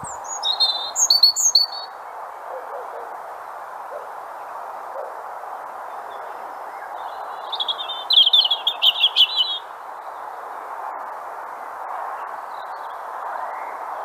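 European robin singing: two short, high, warbling song phrases, one just after the start and another about seven seconds in, over steady background noise.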